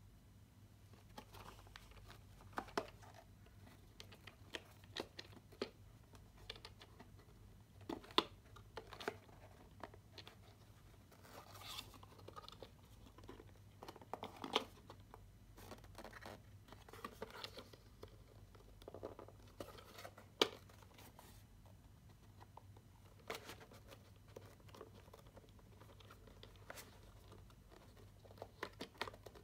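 Quiet handling noise from a GoPro Hero 8 camera and its card and plastic packaging being picked up and moved: scattered clicks, taps and rustles, over a faint steady low hum.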